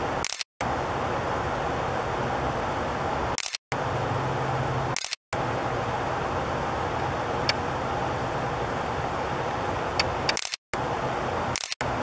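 Steady background hiss with a low hum, broken by five brief complete dropouts, each marked by a short high click: the camera cutting its own sound while it takes still pictures during filming.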